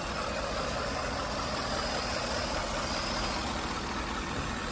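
2016 Ford F-150's engine idling steadily, heard close up under the open hood. It runs smoothly, with no odd noises or hesitation.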